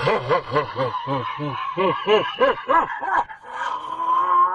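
A man's laugh, a quick run of short 'ha' syllables about three to four a second, then one long held note near the end.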